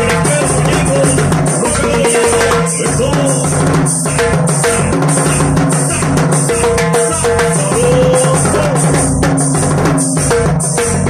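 Live band playing, with a drum kit and timbales keeping a steady, driving beat under a held melodic line.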